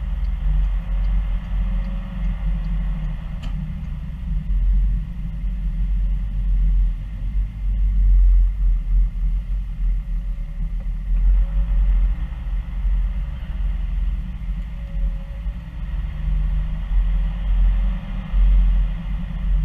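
A car driving, its engine and road noise a steady low rumble heard from inside the cabin.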